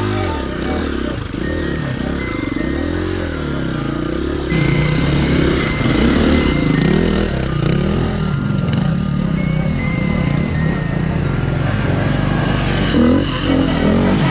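Dirt bike engine revving up and down over and over as it is ridden through rough trail, getting louder about four and a half seconds in.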